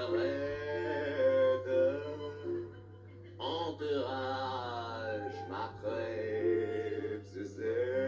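A man singing a comic French-language ballad in a crooning voice, long held notes with a wavering vibrato, breaking off briefly about three seconds in before the next phrase.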